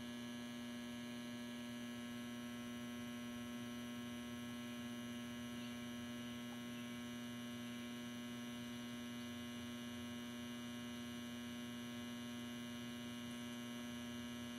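Steady electrical hum: one strong low tone with a ladder of evenly spaced overtones, unchanging throughout.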